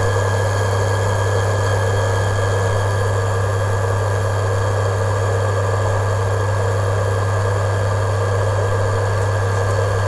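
Repaired induction cooker heating a steel pot of water at full power: a loud, steady low hum with a thin high whine over it, and none of the repeated fault beeping. The cooker is working normally again after a new IGBT and coil.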